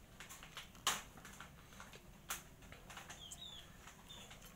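A cat crunching dry kibble from a steel bowl: a run of small irregular clicks and crunches, with two louder crunches about a second in and just past two seconds. Faint high bird chirps come in near the end.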